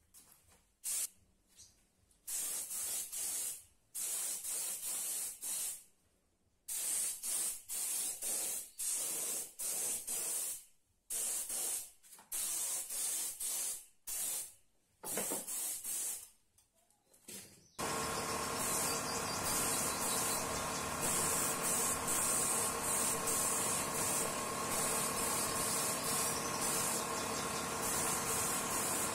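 Gravity-feed air spray gun hissing in short bursts of a second or two as the trigger is pulled and released, spraying finish onto bare wood. About two-thirds of the way through, a steady machine drone with a hiss starts abruptly and keeps going.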